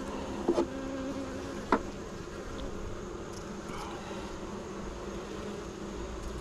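Honeybee colony humming steadily in an open hive, a hum the beekeeper takes for the sign of a colony that is not queenright. Two short clicks sound about half a second and just under two seconds in.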